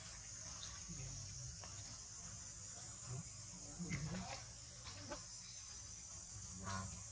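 Insects droning steadily in a high-pitched band. A few brief, soft, faint sounds come about four seconds in and again near the end.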